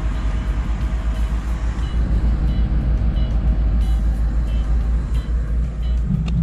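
Large diesel engine of mining heavy equipment running with a steady low rumble. Over it a reversing alarm beeps, short high beeps repeating about every 0.7 s.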